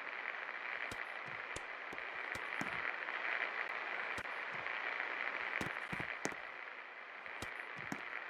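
24-inch Safe Premium ceiling fan running: a steady airy whoosh with scattered, irregular clicks.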